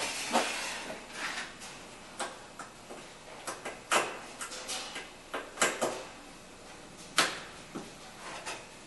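Plastic push-pin retainers being pressed into the cowl panel and their center pins pushed down: a dozen or so irregular sharp clicks and knocks.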